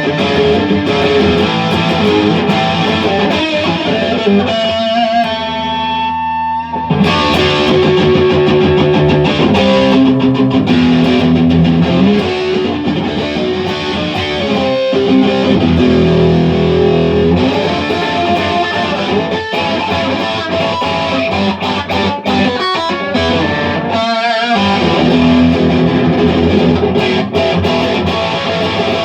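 Electric guitar fitted with DiMarzio and Seymour Duncan humbucker pickups, played with a distorted tone: riffs and chords, with a couple of notes left to ring out briefly, about six seconds in and again near 24 seconds.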